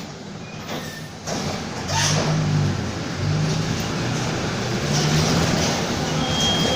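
Mercedes-Benz OF-1722M city bus's diesel engine accelerating. Its sound builds up about a second and a half in and then keeps pulling at a loud level.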